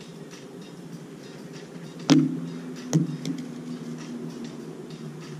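Bat hitting a softball: two sharp cracks under a second apart, the first the louder, each followed by a brief ringing tone.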